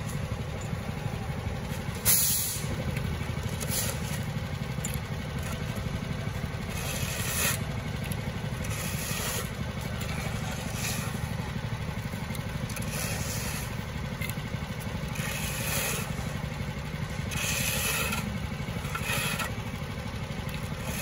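Steel shovels scraping and tossing loose asphalt into a driveway patch, a short scrape every second or two, over the steady low rumble of an idling engine.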